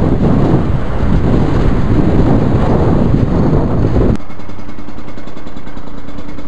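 Wind rushing over a motorcycle-mounted camera's microphone, mixed with engine and road noise while riding. It cuts off abruptly about four seconds in and gives way to a quieter steady hum.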